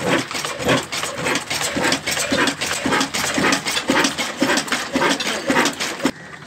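Old 25 HP 'Hussain' single-cylinder horizontal diesel engine with a large flywheel running, an even chugging beat of knocks about three times a second. The sound cuts off abruptly near the end.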